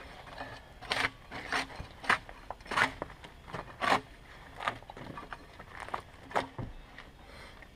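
Bark being scraped and pried off a Douglas fir log with a long-handled debarking tool: about ten short, sharp scraping strokes, roughly one every half second to second. Douglas fir bark comes away easily.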